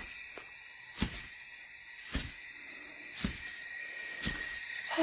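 Night insect chorus of crickets, a steady high chirring, with a soft click about once a second.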